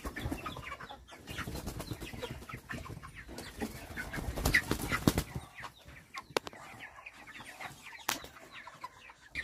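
A flock of chickens clucking throughout, with a few loud knocks about four and a half to five seconds in and two sharp clicks later on.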